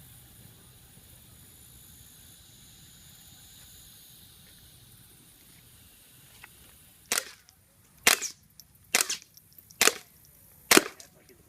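Five suppressed .22 rimfire shots from a Ruger 10/22 fitted with a Gemtech Mist-22 integrally suppressed barrel, firing CCI subsonic rounds. The shots come about one a second, beginning about seven seconds in, each a short sharp crack after quiet background.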